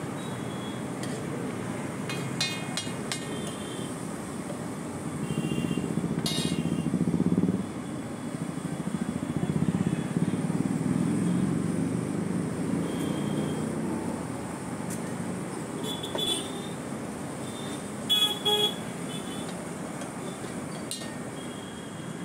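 Roadside street traffic: vehicle engines rumbling past, with short horn toots now and then, the loudest two close together near the end.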